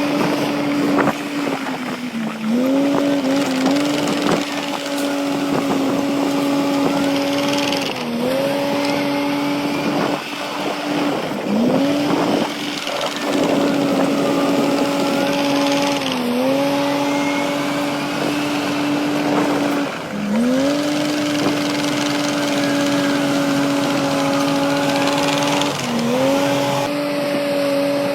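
Heavy earthmoving machine's diesel engine running at high revs, its pitch sagging briefly under load and climbing back about every four to six seconds.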